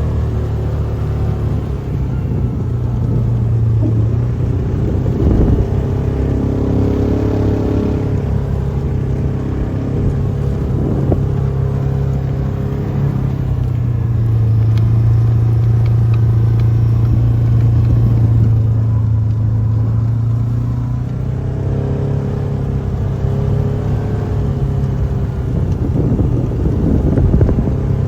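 Tractor engine running steadily with a deep, even hum, growing slightly louder around the middle.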